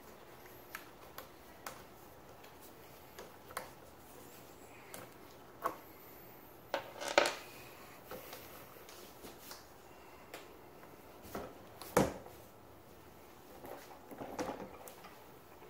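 Scattered light clicks and taps of hand tools and parts being handled on a jet ski's handlebar, with two sharper knocks about seven and twelve seconds in. Near the end, a short burst of handling noise as the handlebar assembly is moved.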